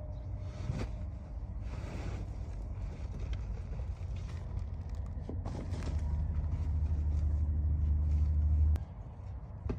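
A low, steady rumble that grows louder about six seconds in and cuts off suddenly near the end, with a few brief rustling or scraping sounds over it.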